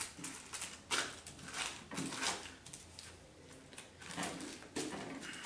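Strawberries being squished by hand inside a plastic bag on a table: faint, irregular crinkling rubs of the plastic, roughly one or two a second, as the fruit is mashed into a pulp.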